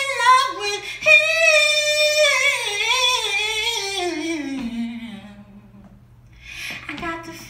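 A woman singing solo into a microphone, with no instruments heard: a long high note with vibrato, then a wordless run that slides down in pitch and fades out about five seconds in. A brief noisy sound comes before she sings again near the end, over a steady low hum.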